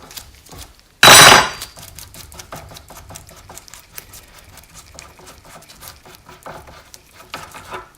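A single loud hammer blow on metal with a short ring about a second in, knocking a part off a BMW R80 airhead fork leg, followed by light clinks and taps of metal parts being handled.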